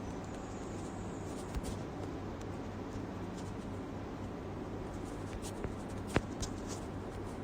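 Room tone with a steady low hum and a few scattered light clicks and knocks, the sharpest about six seconds in.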